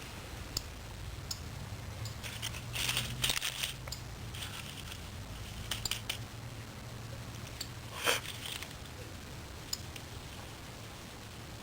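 Dry grass and leaves of a tinder bundle rustling and crinkling as they are handled, with scattered small clicks and a few short crackly bursts.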